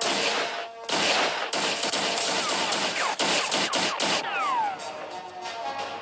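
Action-film fight sound effects: a dense run of sharp hits or shots from about a second in until about four seconds, with a few falling whistle-like tones near the end, over background music.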